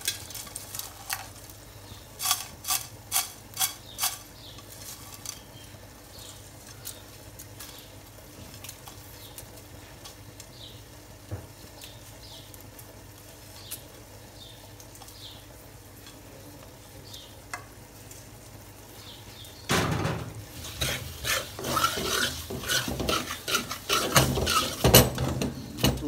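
Metal spoon stirring chopped almonds frying in an aluminium pan: a quick run of about five sharp knocks of the spoon on the pan a couple of seconds in, then a long quieter stretch of faint sizzling with an occasional tick, and vigorous scraping and clattering over the last six seconds or so.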